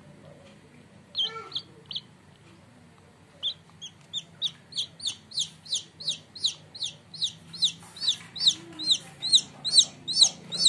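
Newly hatched bantam chick peeping: a few high peeps about a second in, then from about three seconds a steady run of about three peeps a second, each rising and falling in pitch and growing louder. The chick seems to be calling for its mother hen.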